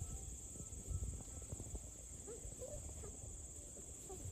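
Steady, high-pitched chorus of crickets. Two faint puppy squeaks come a little past the middle.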